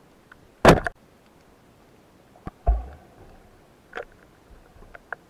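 Sharp knocks and clicks heard underwater: a loud double crack about half a second in, a sharp hit with a dull low thump after it halfway through, then a few fainter clicks.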